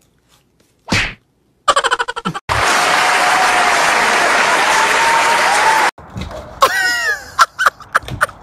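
An audience applauding loudly for about three seconds, cut off suddenly. Before it come a single sharp smack and a quick rattle of clicks; after it, a short run of falling sliding tones and scattered sharp clicks.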